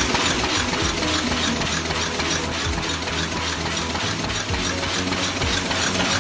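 High-speed paper cup forming machine running at full production, a fast, even clatter of clicks from its rotating forming stations and cams over a low steady hum.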